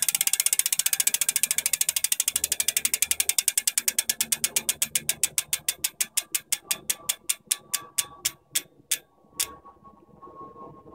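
Hope Pro 2 Evo rear hub freewheeling: the freehub's pawls click so fast at first that they run together into a loud buzz, then the clicks space out as the wheel coasts down and stop about nine and a half seconds in.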